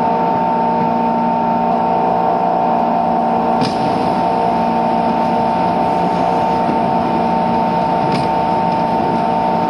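Abnormal whine from the motor generator (MG) of a JR 205 series 600-subseries electric train car, heard on board: a loud, steady whine of several fixed tones that do not rise or fall, over the train's running rumble. Two sharp clicks come about four and eight seconds in.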